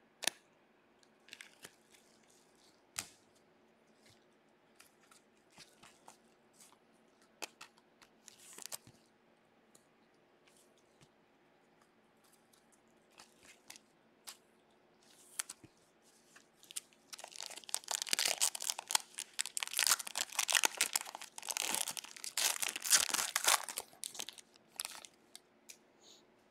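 A trading-card pack wrapper being torn open and crinkled by gloved hands. Scattered light clicks and rustles of cards being handled come first, then a long, dense stretch of crinkling past the middle.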